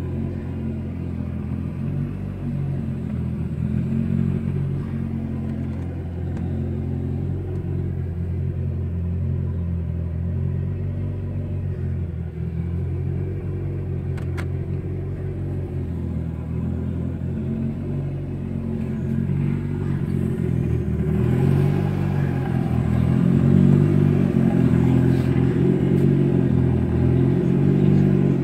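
Mitsubishi Lancer Evolution VI Tommi Makinen Edition's turbocharged 2.0-litre four-cylinder engine running with a steady low rumble, growing louder and fuller about three-quarters of the way through.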